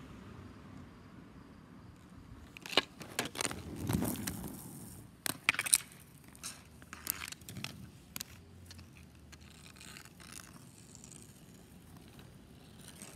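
Hard clacks and scrapes of a hockey stick and inline skates on a concrete driveway, in a quick cluster about three to six seconds in, then scattered fainter clicks.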